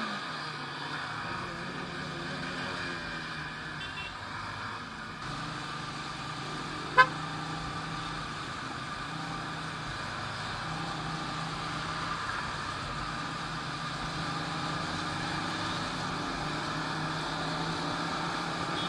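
Motorcycle running at a steady highway cruise, engine tone under rushing wind noise, with one very short, loud horn toot about seven seconds in.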